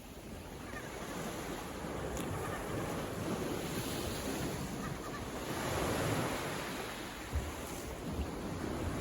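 Ocean waves breaking and washing on the shore, with a swell of surf about six seconds in. Wind buffets the microphone.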